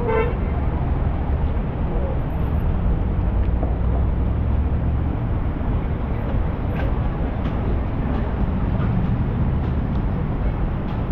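Steady low rumble of city traffic and vehicle noise, with a few faint clicks in the second half.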